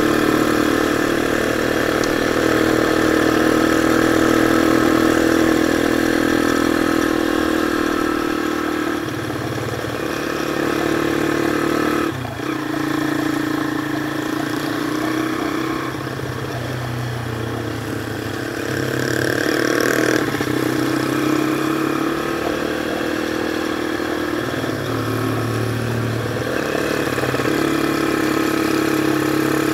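Modified Honda C70 motorcycle engine running under way, its note rising and falling with the throttle. It drops off suddenly about twelve seconds in and picks up again around twenty seconds.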